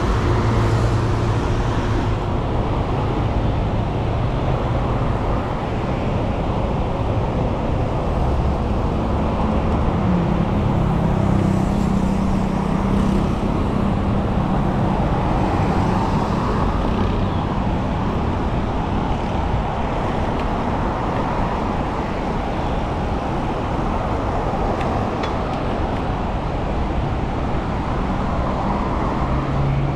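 Steady city road traffic, with motor vehicle engines running close by. A nearby engine hum grows stronger about ten seconds in.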